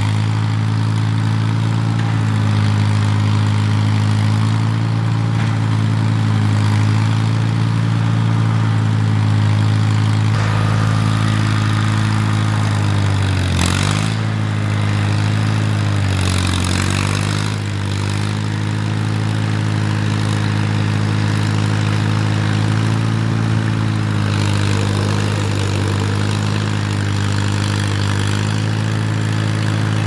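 Farm tractor engine running steadily as the tractor works its front loader moving snow, the engine note sagging briefly twice near the middle.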